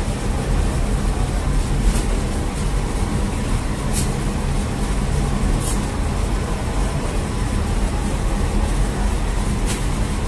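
Steady low rumble of bakery machinery and a bread oven running, with four sharp clicks or knocks spread through it.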